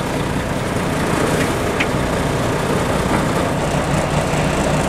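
Diesel truck tractor unit idling steadily, a low even engine rumble.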